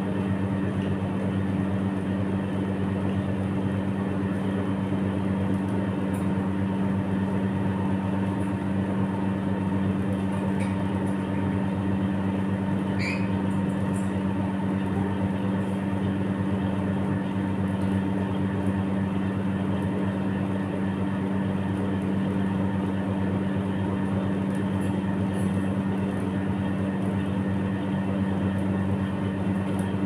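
A steady low machine hum, like an appliance motor, holds level throughout. About thirteen seconds in, the African grey parrot gives one short rising squeak.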